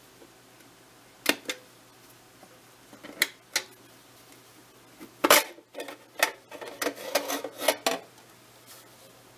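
Sharp mechanical clicks from a 1926 Zeiss Ikon Box Tengor box camera being handled: two pairs of clicks, then a run of clicks, knocks and rattles as the box is opened and its inner film-holder section slid out.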